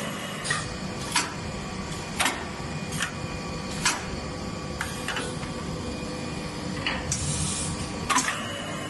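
Automated pneumatic shoe-making machine running: a steady motor hum with irregular sharp mechanical clacks roughly every second. A short hiss of compressed air comes about seven seconds in.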